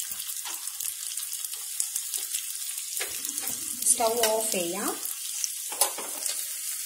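Raisins sizzling and crackling in hot ghee in a small metal tempering pan, stirred with a spoon.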